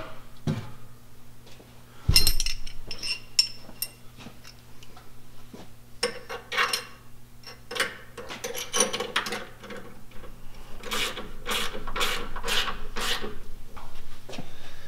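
Ratchet wrench tightening the mounting bolts of Power-Pole shallow-water anchor brackets on a boat's transom: runs of short rasping back-and-forth strokes of pawl clicks, about two strokes a second near the end. A sharp knock about two seconds in.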